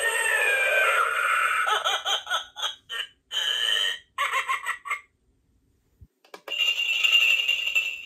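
Halloween LED animatronic doorbell playing its spooky sound clip: choppy, gliding electronic sounds for about five seconds, then a short break with a click, then a steady high tone.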